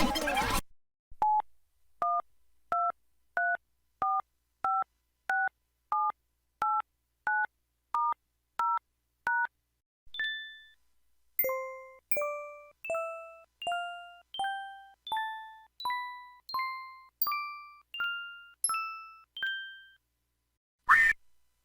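Electronic mobile-phone tones from a Yamaha MA-5 synth chip: about thirteen short two-note beeps, evenly spaced. Then a run of about fifteen chime-like tones, each dying away and climbing step by step in pitch.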